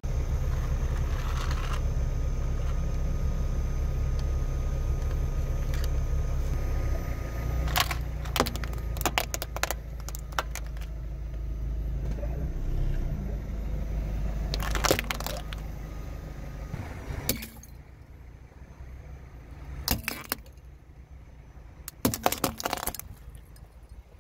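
A car's engine runs low and steady while its tyre rolls over plastic toys and toothpicks on asphalt, with clusters of sharp cracks and crunches as they break. The low rumble stops about two thirds of the way through, leaving scattered crunches.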